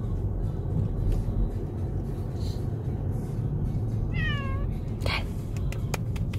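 A domestic cat meows once about four seconds in, a short call falling in pitch, over the steady low rumble of the moving car. A brief rasp follows a second later, then two clicks near the end.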